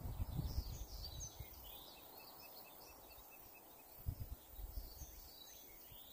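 Faint birdsong: scattered chirps and short whistled notes from small birds, with a short run of evenly spaced chirps about two seconds in. Soft low rumbles come and go, near the start and again about four seconds in.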